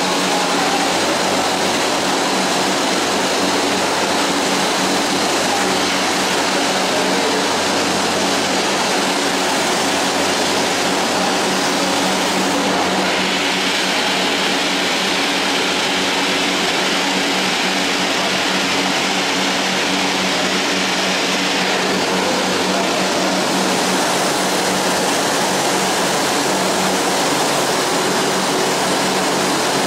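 Oil-fired South African Railways Class 19D steam locomotive standing in steam: a steady rushing noise of the burner firing and steam escaping, with a low hum underneath. A brighter hiss joins from about 13 to 22 seconds in.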